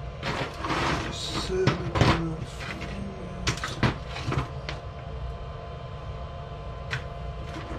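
Rummaging through workbench parts: scattered clicks, knocks and rustles of small items and drawers being handled, busiest in the first couple of seconds, over a steady low hum.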